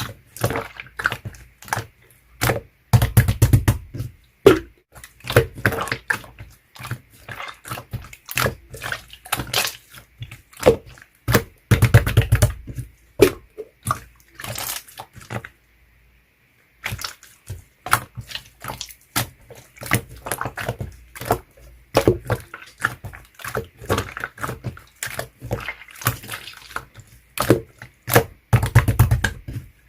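Clear slime being squished and pressed by hand: a rapid run of wet, sticky clicks and pops, with a short pause about halfway through.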